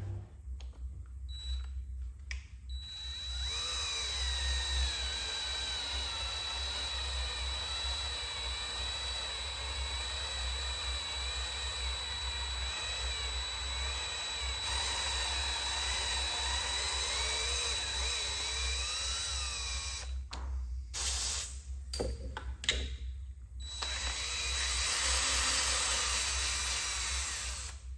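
Power drill running in a long stretch, its motor pitch wavering up and down with the load while working a bolt hole for a thread-repair insert. It stops about twenty seconds in, gives a few short bursts, then runs again near the end.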